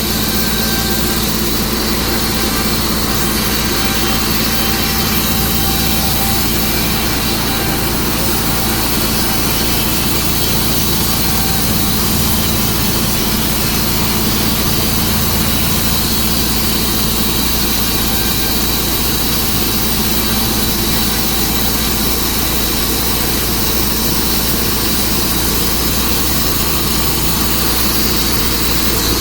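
Engine-driven Tru-Cut sawmill running steadily as its blade cuts through a juniper log, a constant loud engine hum under the whine of the saw.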